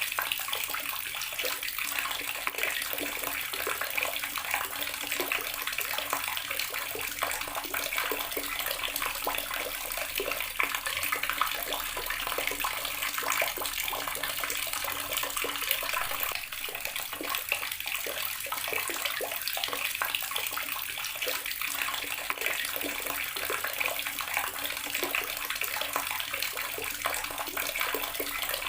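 Outdoor garden water tap running, a steady stream of water splashing without a break.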